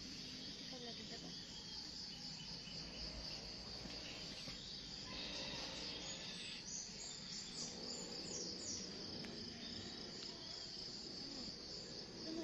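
Steady insect chorus: a continuous high-pitched trilling drone, with a few short, faint higher chirps about halfway through.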